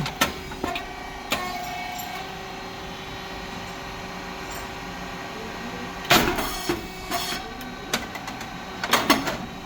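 Puffed rice cake machine running: a steady hum of its motor and hydraulic pump, with a few sharp clicks early on and two loud sharp bursts, one about six seconds in and another near the end, as its working cycle goes on.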